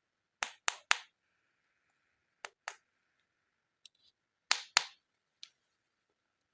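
Sharp clicks or taps of hard objects: three quick ones, then pairs, with short gaps between.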